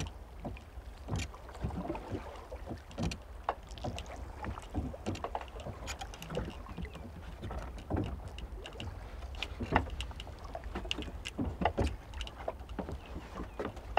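Small waves slapping and lapping against a wooden boat's hull, with irregular knocks and splashes. A steady low wind rumble sits underneath.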